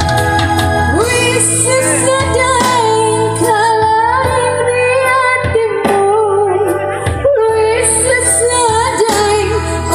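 A woman singing a Bugis slow-rock song with wavering vibrato, backed by a Yamaha PSR-S970 arranger keyboard playing held chords and bass.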